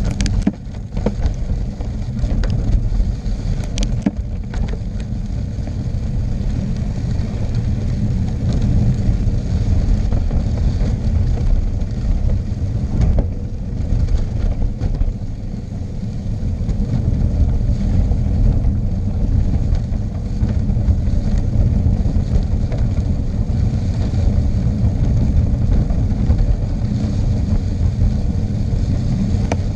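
Steady low wind buffeting on the microphone mixed with road rumble during a fast downhill ride, with a few sharp clicks in the first four seconds.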